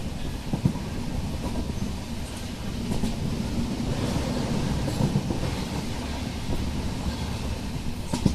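Moving passenger train's running noise: a steady low rumble with irregular knocks from the wheels over the rail joints.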